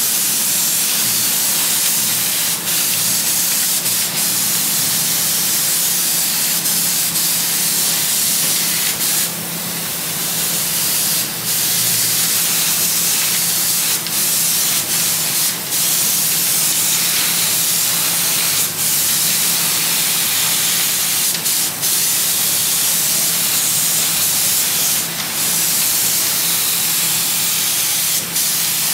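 Compressed-air paint spray gun hissing steadily as it lays paint on, with brief dips every few seconds. A faint steady low hum runs underneath.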